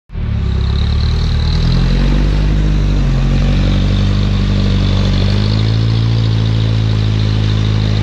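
Toyota rock buggy's engine running under load as it crawls up a rock ledge. The revs rise and fall with the throttle, climbing again about two-thirds of the way through.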